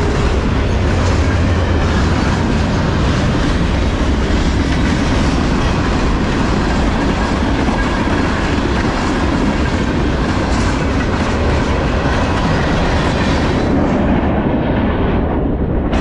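Freight train cars rolling past close by: a steady, loud rumble and clatter of steel wheels on the rails.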